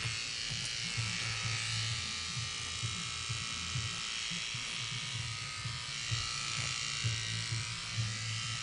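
Corded electric hair clippers running steadily as they shave a woman's head down to stubble, with a constant buzz and slight changes as the blade moves through the hair.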